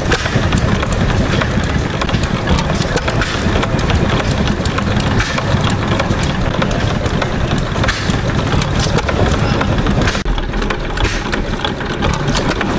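Antique vertical stationary gas engines running, including an International Harvester Famous vertical engine, with a steady low chugging and frequent sharp clicks and knocks from their moving parts.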